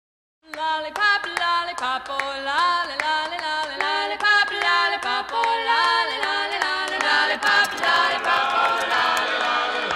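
After about half a second of silence, a song starts: a singing voice carries a gliding melody over light accompaniment, with short ticks throughout.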